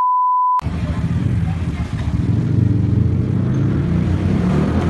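Steady 1 kHz test tone that cuts off about half a second in, then a loud low rumble of street noise.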